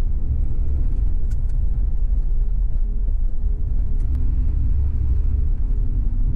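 A vehicle on the move: steady low road rumble, with a couple of pairs of faint clicks, the first about a second in and the second past the middle.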